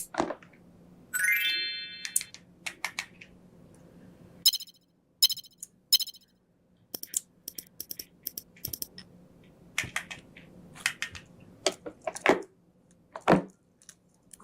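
Wooden toy doctor-kit pieces being handled: a long series of sharp clicks and taps, with a short ringing electronic-sounding tone about a second in.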